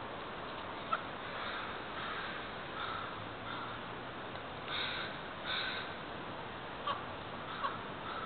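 Crows cawing: a run of about six short caws, the two loudest about five seconds in, over a steady background noise, with a few sharp clicks near the end.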